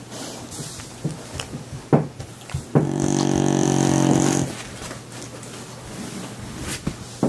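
An animal snoring in its sleep: one long, droning snore in the middle, with a few short snuffling clicks before it.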